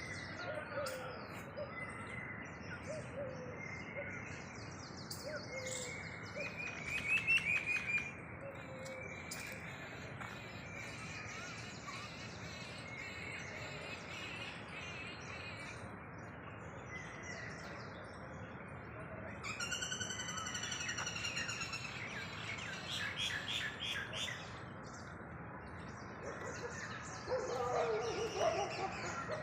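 Small birds chirping and calling, many short repeated notes over a steady background hiss, with a rapid run of notes about twenty seconds in. A lower, different call comes in near the end.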